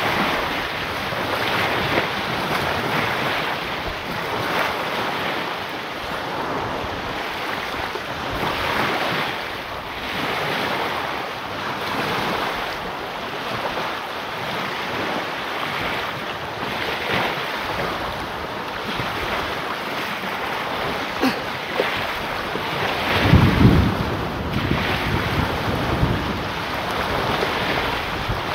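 Small waves breaking and washing up a sand beach, rising and falling every couple of seconds, with wind blowing on the microphone. About three-quarters of the way through, a heavy gust of wind buffets the microphone.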